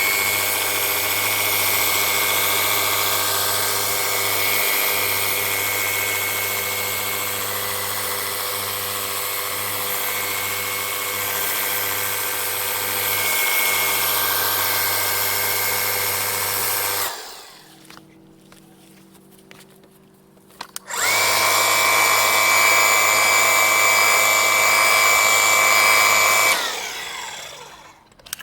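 Xiaomi Jimmy JW31 cordless pressure washer running: its battery-powered pump motor makes a steady whine over the hiss of the water jet. It cuts out about seventeen seconds in, starts again a few seconds later, and stops near the end.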